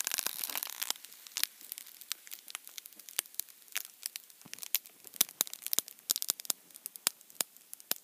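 Foil novelty greeting packet with a self-inflating balloon, just whacked to start the chemical reaction inside, crackling as it begins to fizz and expand: a dense rustle in the first second, then irregular sharp clicks.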